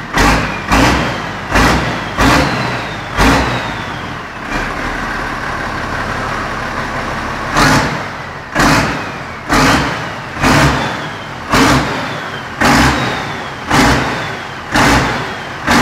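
Tractor's diesel engine revved hard again and again, about once a second, each rev dropping away with a falling whine. It settles to a steady idle for about three seconds in the middle before the revving starts again.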